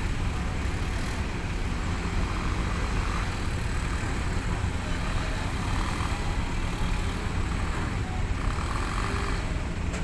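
Large diesel engine running with a steady low rumble.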